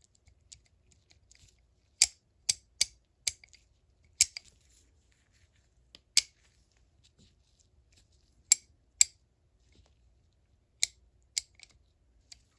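Sharp metal clicks from the parts of a disassembled vintage Snap-On No. 71-M ratchet being handled, about ten irregular clicks with pauses between them.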